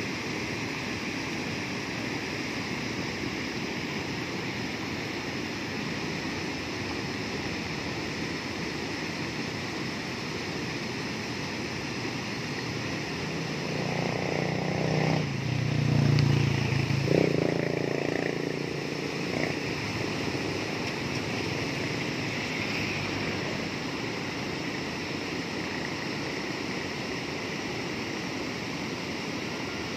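Water pouring steadily over a concrete weir and churning among rocks, a constant rushing. About halfway through, a louder low rumble swells for a few seconds and fades.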